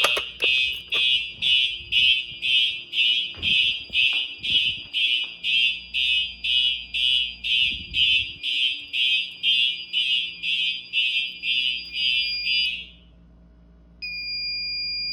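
Fire alarm horn sounding in rapid buzzy pulses, about two a second, set off by a pulled Fire-Lite BG-10 pull station. It cuts off about 13 seconds in, and a second later a steady high-pitched beep starts.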